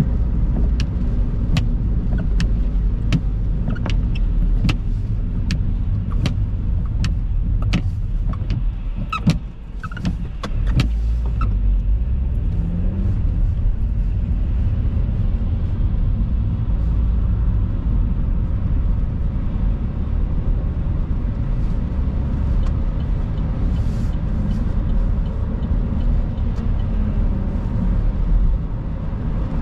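Car cabin noise while driving on a wet road: a steady rumble of tyres and engine. For roughly the first ten seconds a regular ticking, about one and a half ticks a second, comes from the turn indicator, then stops.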